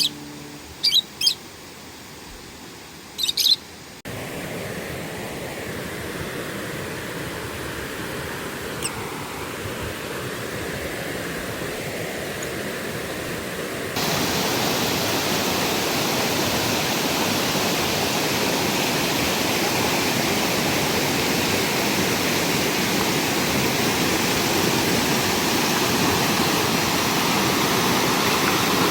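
A few short bird chirps in the first seconds, then the steady rushing of a valley stream, which gets louder from about fourteen seconds in.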